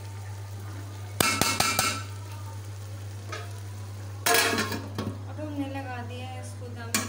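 A metal spatula clanks and scrapes against an aluminium pot of rice. About four seconds in, an aluminium lid is set down on the pot with a clatter, over a steady low hum.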